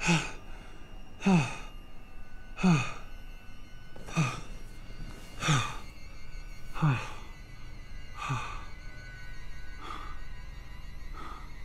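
A man moaning in pain, one short breathy moan falling in pitch about every second and a half, the last two fainter; he is sick in the stomach.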